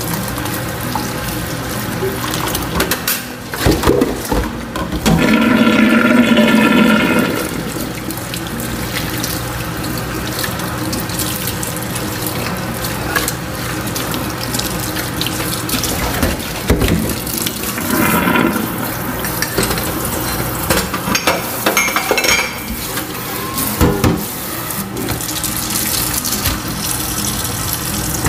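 Tap water running into a stainless steel kitchen sink while dishes are washed by hand, with occasional knocks of dishes and a louder pitched stretch of rubbing or ringing about five seconds in.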